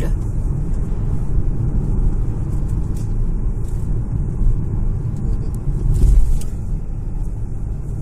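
Road noise from inside a moving car's cabin: a steady low rumble of engine and tyres, with a brief louder swell about six seconds in.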